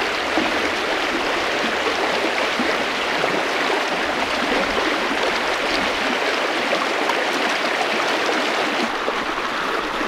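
Fast-running stream water rushing steadily, a loud, even wash of noise with no distinct splashes.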